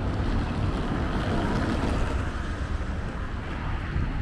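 Wind rumbling steadily on a small handheld camera's microphone, over general street noise.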